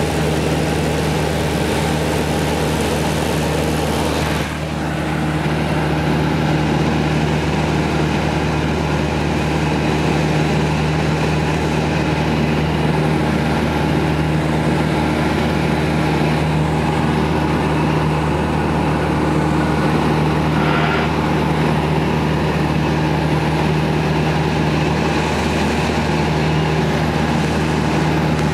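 Cessna 172 Skyhawk II's four-cylinder Lycoming engine and propeller droning steadily in flight, heard from inside the cabin with airflow hiss. The sound drops briefly and comes back about four and a half seconds in.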